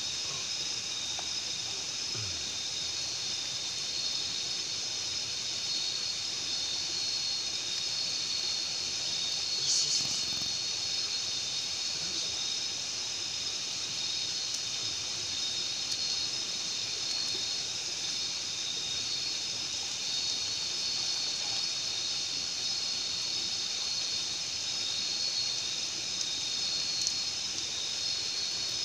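Steady riverside night ambience: flowing river water under a constant high-pitched chorus of several steady tones, with one brief soft knock about ten seconds in.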